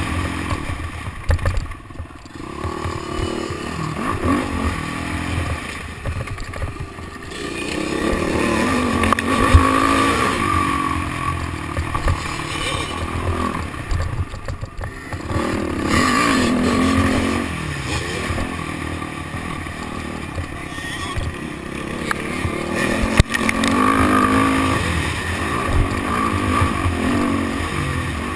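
Motocross dirt bike engine revving up and dropping off again and again as the throttle is opened and closed around the track.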